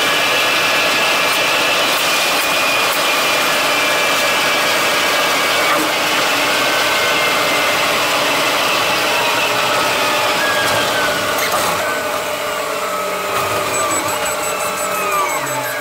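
Bus running along the O-Bahn concrete guided busway, heard from on board: a steady, loud running noise with a high whine that falls in pitch over the last few seconds.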